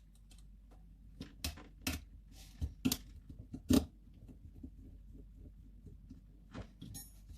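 Scattered sharp clicks and light taps: a precision screwdriver and tiny screws being handled while a compact camera is taken apart. There are several taps between about one and four seconds in and two more near the end.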